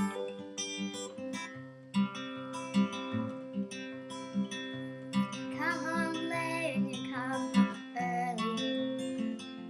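Acoustic guitar playing an instrumental introduction, strummed over a steady bass beat. A second melodic line with a wavering pitch comes in for a few seconds around the middle.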